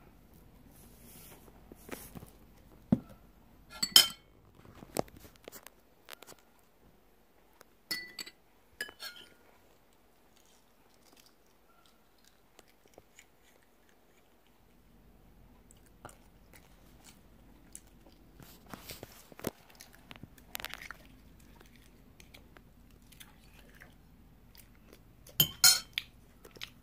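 Scattered small cracks and crunches of a boiled balut's eggshell being peeled, with a metal spoon clinking and scraping in the egg and some chewing. The sharpest cracks come about four seconds in and again near the end.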